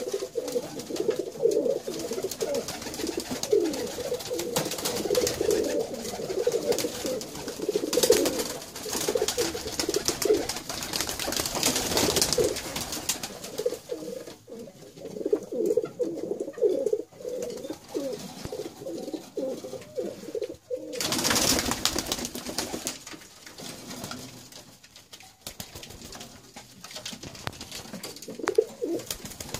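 Domestic pigeons cooing on and off, several birds overlapping, with a few short rushes of wing flapping.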